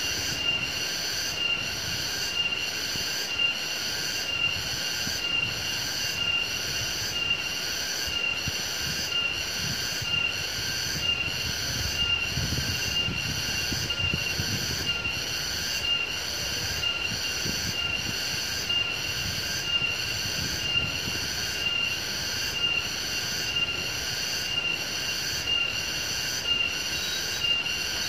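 Chorus of insects chirring steadily, a shrill high buzz that swells in even pulses about once a second.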